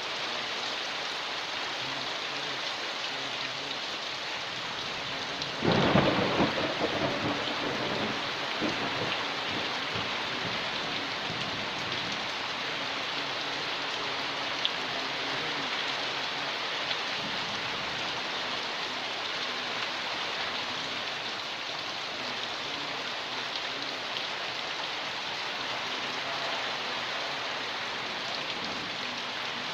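Steady heavy rain falling on a porch, with a sharp thunderclap about six seconds in that rolls off into rumbling over the next few seconds.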